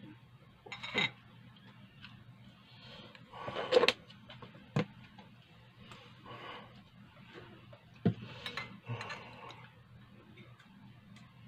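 Metal teaspoon clinking against a glass mug of tea as sugar is spooned in and stirred: a handful of sharp, scattered clinks, the loudest about four seconds in.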